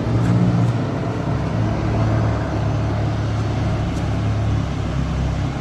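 Troller 4x4's diesel engine running steadily as the vehicle drives on, a continuous low drone that is slightly louder in the first second.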